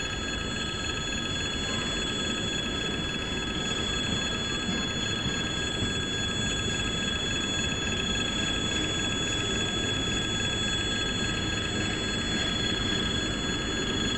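Level-crossing warning bell ringing steadily as a freight train's wagons roll past, their wheels giving a low rumble underneath.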